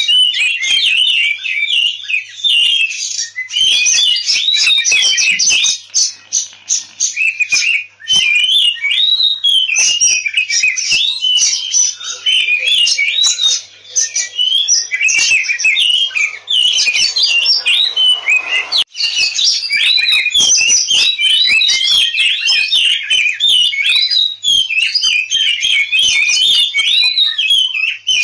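Oriental magpie-robin (kacer) in a fierce 'ngobra' fighting-mood song: a fast, near-continuous run of loud whistled notes, chirps and trills, with a few brief pauses.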